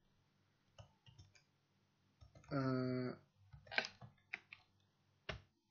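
Computer keyboard keys clicking faintly, a few at a time in scattered groups. About halfway through, a man voices one held "ehh" hesitation sound, the loudest thing heard.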